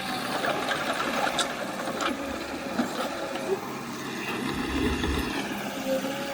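Heavy earthmoving machine's engine running, with a few sharp clanks and a deeper rumble swelling about four and a half seconds in.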